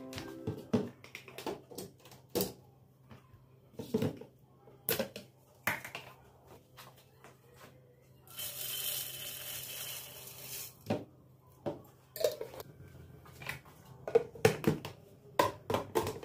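Dishes and kitchen items being handled and set down: scattered light knocks and clicks, with a hiss of about two seconds near the middle and a quick run of clatter near the end.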